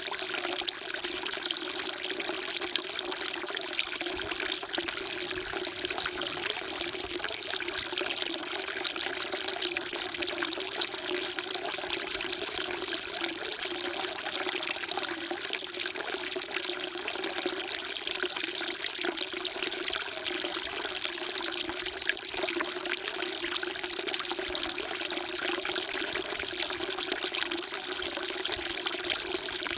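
Water falling steadily into a stone temple water trough (sugwak), a continuous splashing trickle.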